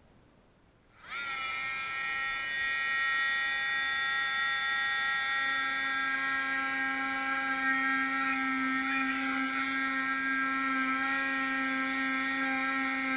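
Dremel oscillating multi-tool with a half-moon blade starting about a second in and running with a steady high whine as it cuts the plexiglass aircraft canopy. A lower steady tone joins about five seconds in.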